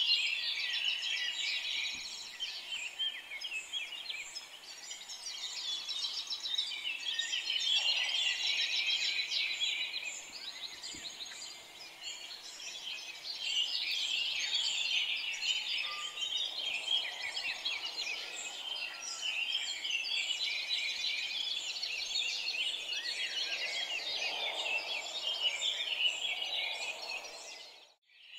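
A chorus of small songbirds chirping and twittering, many short overlapping calls at once. The sound drops out briefly near the end, then resumes.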